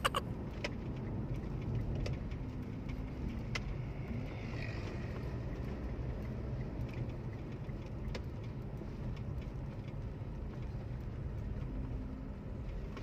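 Steady low drone of a car's engine and tyres on the road, heard from inside the cabin while driving.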